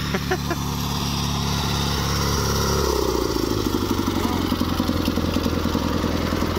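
Engine of a 1978 Sears GT/18 lawn tractor running; about three seconds in its note changes and it rises into a faster, pulsing run, as if throttled up.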